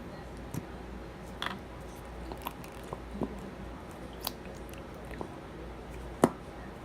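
Slime being worked by hand: scattered small wet clicks and crackles, with one louder pop about six seconds in, over a low steady hum.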